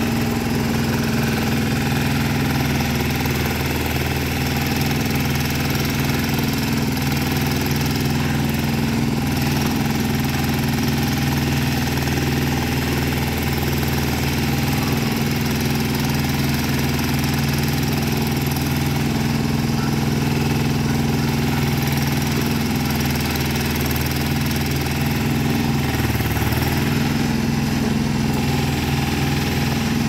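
Engine of a small self-contained movable backhoe running steadily while its hydraulic arm digs soil; the note dips briefly a few seconds before the end.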